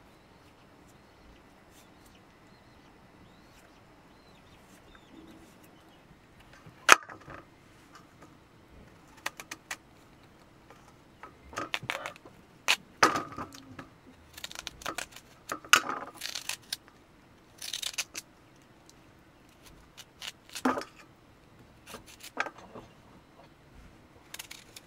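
Knife cutting a peeled green vegetable into chunks over a metal plate, the pieces and the blade clinking against the steel. Irregular sharp clicks and short scrapes start about seven seconds in with one loud click, then come in small clusters.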